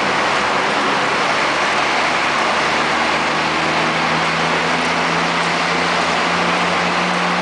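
Steady engine drone and road roar of a vintage military vehicle driving through a road tunnel, with wind rushing over the open hood.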